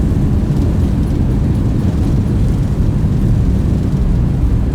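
Loud, steady low rumble inside an airliner's cockpit during the landing roll, just after touchdown: engine, airflow and wheel noise.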